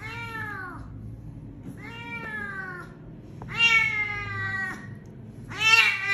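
Injured cat crying out in four drawn-out meows about a second long each, the first falling in pitch and the last the loudest. The cries come while maggots are picked from a wound near its tail with tweezers.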